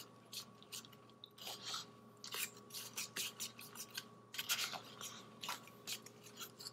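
Metal spoon stirring oatmeal and water in a cardboard instant-oatmeal cup: a faint run of short, irregular scraping strokes against the cup, a few a second.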